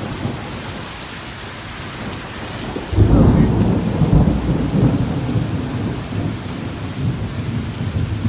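Steady rain falling, with a loud, low clap of thunder breaking about three seconds in and rumbling on as it slowly fades.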